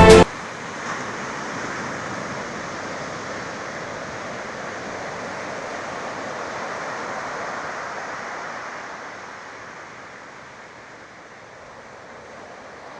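A steady rushing noise, fading slowly over the last few seconds. It is cut into at the very start by a brief loud tone with several pitches.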